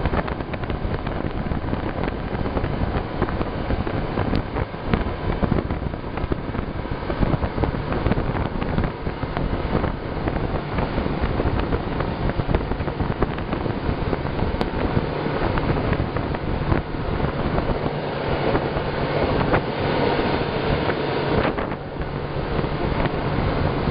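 Boat motor running steadily while the rigid inflatable boat is under way, with a low steady hum under a dense rush of wind and water noise on the microphone.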